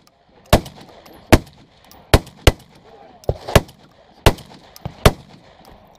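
Benelli M4 Tactical 12-gauge semi-automatic shotgun fired in quick succession: about nine sharp shots over five seconds, some close together, with other guns on the firing line mixed in.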